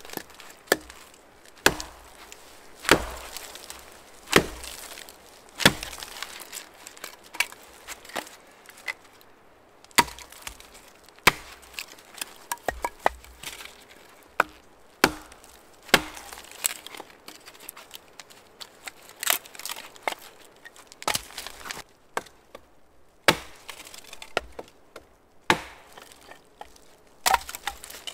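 Hatchet chopping and splitting a short log into kindling: sharp chops of the blade into the wood about every one to one and a half seconds, with lighter taps between.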